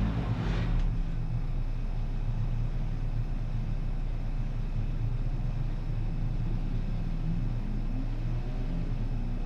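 Honda Integra DC2 race car's engine running steadily at low, unchanging revs. A brief rush of noise comes in the first second.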